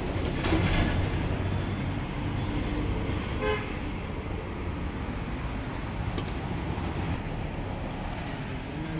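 Steady rumble of street traffic, with a short vehicle horn toot about three and a half seconds in.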